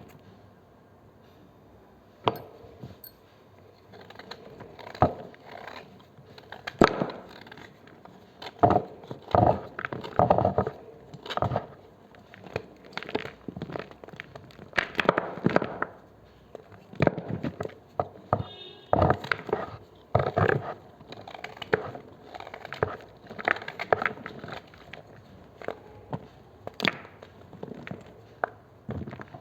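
A knife cutting and crushing blocks of gym chalk: irregular dry crunches and crackles, some in quick clusters, starting about two seconds in.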